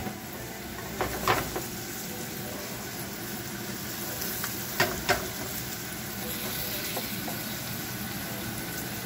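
Shrimp frying in oil in a skillet over high heat, a steady sizzle that grows a little louder after about six seconds. A spatula knocks and scrapes against the pan in two pairs of short knocks, about a second in and about five seconds in, as the shrimp are stirred.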